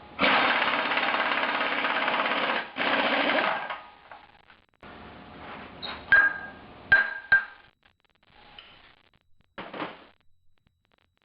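An impact wrench hammering for about three and a half seconds on a bolt during engine teardown. Then a few sharp metallic clinks with a ringing tone as tools or parts knock together.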